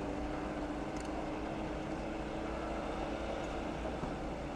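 Nissan Patrol's engine running under load off-road, heard as a steady low drone.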